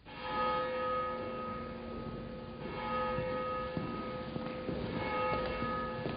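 Church bell ringing at a slow, even pace, each stroke swelling and ringing on into the next.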